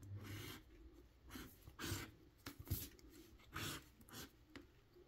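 A pet dog tag scraping the latex coating off a scratch-off lottery ticket: faint, short, irregular scraping strokes.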